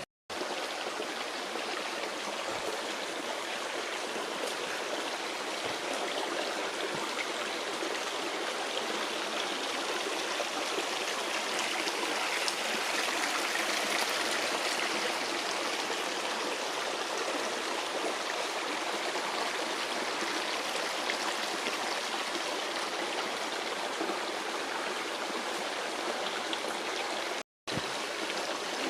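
Creek water running steadily, a constant rushing with no breaks except a brief cut-out near the end.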